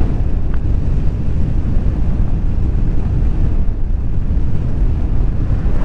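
Wind buffeting the microphone of a GoPro on a moving bicycle: a steady low rumble.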